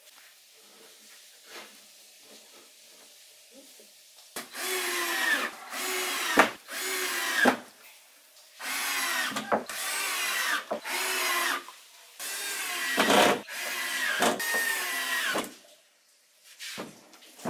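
Cordless drill with a screwdriver bit driving screws through a plastic barrel's rim into a wooden frame. About four seconds in it starts a series of about eight short whining runs, the pitch dropping at the end of each, several ending with a sharp click.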